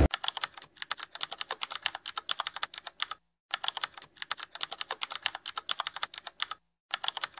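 Keyboard typing sound effect: a fast, even run of key clicks, broken by two short pauses, one about three seconds in and one near the end.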